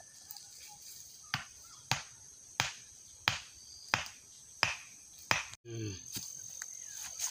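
Wooden mallet knocking a peg into the ground: seven sharp strikes about two-thirds of a second apart, starting about a second in. Insects buzz steadily behind.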